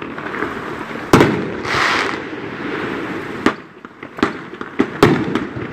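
T Sky "Hot-n-Ready" 500-gram consumer fireworks cake firing: one loud bang about a second in, a brief hiss, then a quick run of sharp bangs through the second half.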